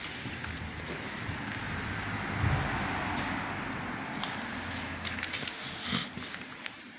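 8B72K power hacksaw running: a steady mechanical noise with a low hum, swelling a little about two seconds in, with a few light clicks.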